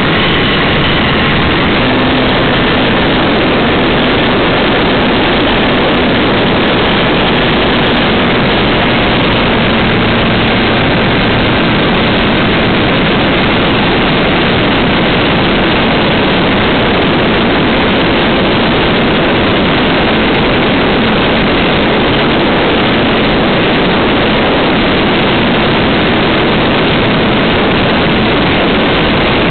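Wilga 2000 aircraft in flight, its engine and propeller running steadily under heavy wind rush on an onboard camera, a loud, even, unbroken noise.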